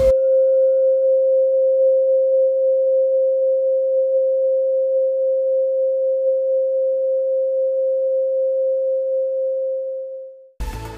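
A single loud, steady pure tone at a middle pitch, held for about ten seconds and then cutting off suddenly just before the end. A faint higher tone above it fades away over the first several seconds.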